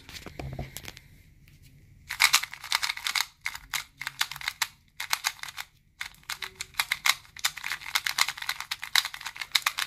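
YJ MGC magnetic 2x2 speed cube being turned quickly by hand: a soft knock or two as it is picked up, then fast runs of small plastic clicks starting about two seconds in, with a few brief pauses between runs.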